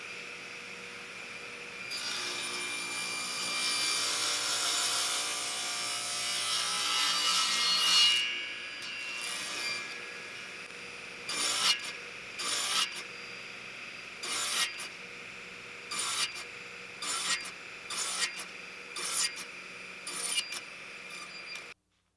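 A hand tool scraping and rubbing on reclaimed oak: several seconds of continuous scraping, then about nine short separate strokes roughly a second apart. The sound cuts off suddenly near the end.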